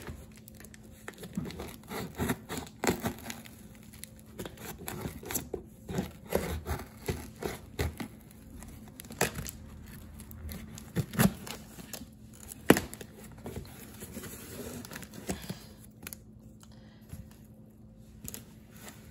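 Packing tape being cut with scissors and torn on a cardboard shipping box, with crinkling of the paper packing slip and irregular sharp clicks and rustles. The box is heavily taped, so the opening is a struggle.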